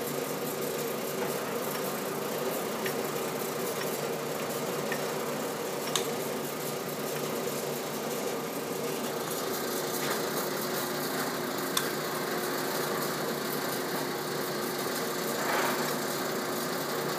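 VDF engine lathe running with its spindle turning fast, giving a steady mechanical drone with a humming tone from the drive and gearing. A few sharp clicks sound about 6 and 12 seconds in.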